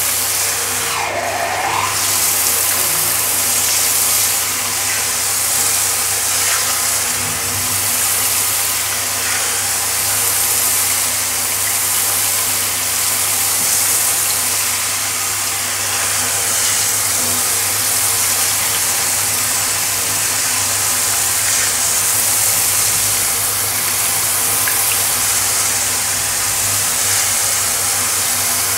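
Handheld pet shower head spraying water onto a tiled floor: a steady hiss of spray with a constant low hum underneath.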